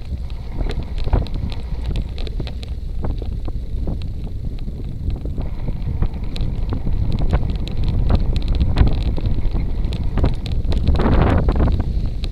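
Wind buffeting the microphone of a bicycle's rear camera, with the tyres rolling over a dirt and gravel road and many short clicks and knocks from the bike and gravel. A louder rush of noise comes about eleven seconds in.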